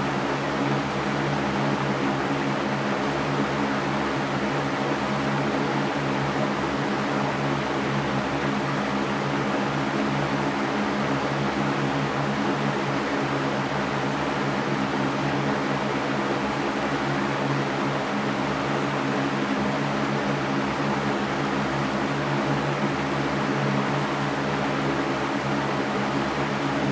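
Electric fan running steadily: an even whooshing rush of air with a constant low motor hum underneath.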